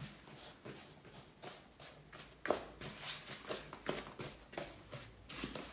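Rustling and soft knocks of things being handled on a kitchen counter, with a sharper knock about two and a half seconds in.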